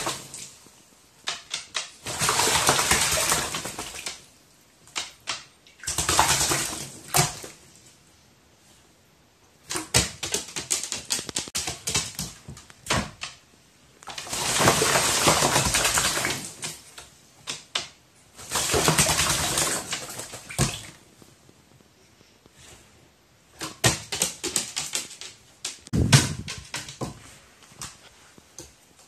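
A crow bathing in a water dish, splashing in repeated bursts of a second or two, with quieter spells of small taps and clicks between them.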